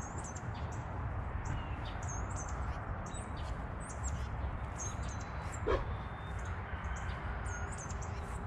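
Outdoor ambience: small birds chirping, many short, quick high calls scattered throughout, over a steady low hum. One short sharp sound stands out about five and a half seconds in.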